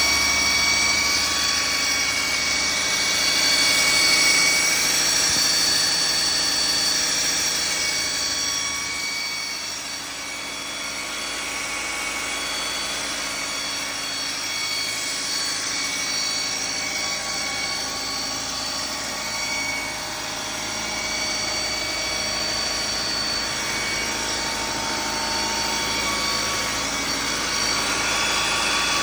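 Audi/VW 2.0T turbocharged four-cylinder engine running with a steady high-pitched whine over the engine noise, a little quieter from about ten seconds in. The owner takes the whine for a bearing noise from one of the balance shafts.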